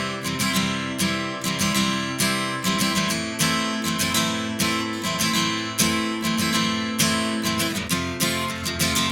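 Instrumental passage of a song: an acoustic guitar strumming chords in a steady rhythm, about two to three strokes a second.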